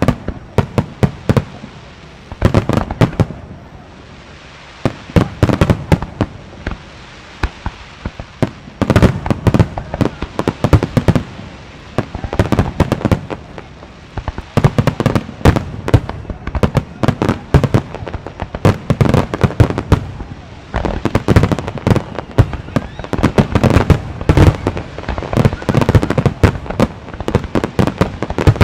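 Aerial fireworks bursting in quick succession: deep booms and sharp cracks, many overlapping. There is a brief thinner stretch a few seconds in, then an almost unbroken barrage.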